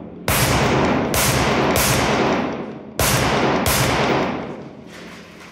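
Rifle fired five times in two quick strings, three shots then two, each shot leaving a long fading echo.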